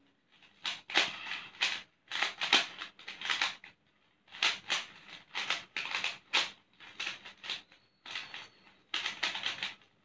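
A plastic 3x3 Rubik's cube turned by hand in a string of quick layer turns, its pieces clicking and rattling, as a last-layer algorithm is run through, with a few short pauses between moves.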